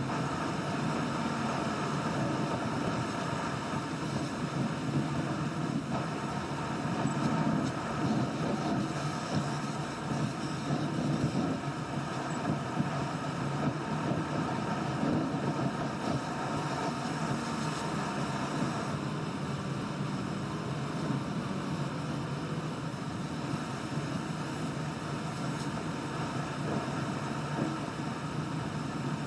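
A car's driving noise heard from inside the cabin: steady tyre, road and engine noise while cruising.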